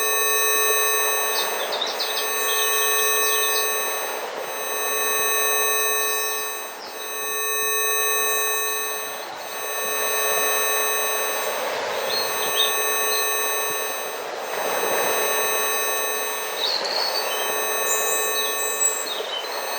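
A steady electronic tone with a ladder of higher overtones, the 'Rife healing frequency', laid over nature sounds: a rushing noise that swells and fades every two or three seconds, and birds chirping now and then.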